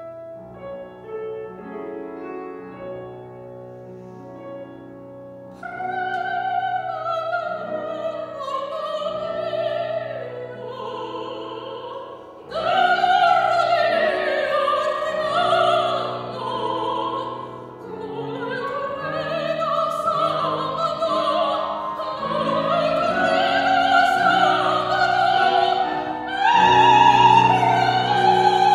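A woman singing in operatic style with piano accompaniment. The piano plays alone for the first few seconds, then her voice enters with a wide vibrato and grows much louder about twelve seconds in.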